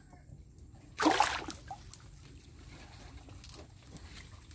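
A single short splash of water about a second in, over faint water noise.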